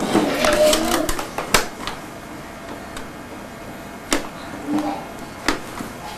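Plastic keys of a McDonald's toy cash register clicking as a child presses them: a few sharp clicks spaced a second or more apart, the loudest about a second and a half in.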